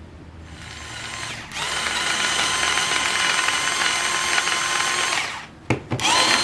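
Small cordless electric mini chopper running as it chops chilies, shallots and garlic into spice paste. It builds up over the first second or so and runs steadily for about four seconds, then stops. After a short click it starts again near the end.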